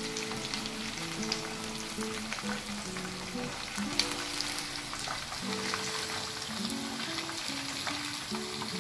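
Spice-marinated chicken pieces deep-frying in hot oil, a steady sizzle with fine crackles; the chicken is fried through and ready to come out. A sharp click about four seconds in, over soft background music.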